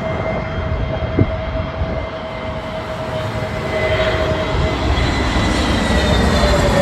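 Jet airliner engines: a steady whine over a broad rumble that grows louder, the whine starting to fall slightly in pitch near the end as the aircraft passes.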